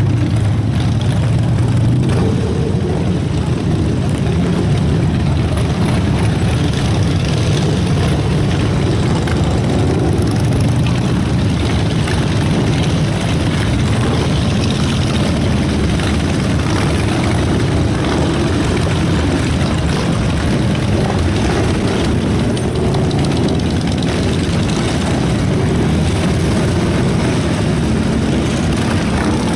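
Many motorcycle engines running together as a procession of bikes rolls in: a steady low rumble that never lets up.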